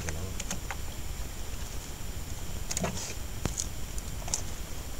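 Freshly caught live fish flapping in a boat's hold, with scattered wet slaps and knocks against each other and the hull over a steady low rumble.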